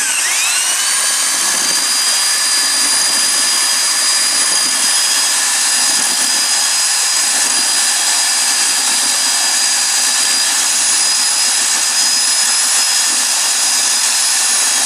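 Electric drill with a paddle mixer stirring cement mortar in a plastic bucket. It spins up over the first second, runs at a steady high-pitched whine, then starts to wind down at the very end. This is the second mixing of the mortar after its rest.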